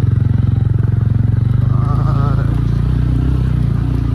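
Single-cylinder motorcycle engine running with a rapid, even chugging. Its note shifts about halfway through.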